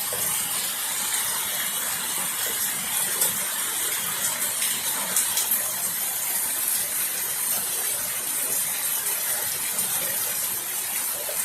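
Heavy rain with water pouring and splashing from a gutter that leaks at its joints. A steady hiss, flecked with small drip ticks.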